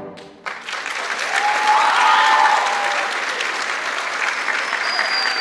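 Audience applause breaking out about half a second in, just after the orchestral music stops, and carrying on steadily. A voice calls out from the audience around two seconds in, and a high sustained whistle starts near the end.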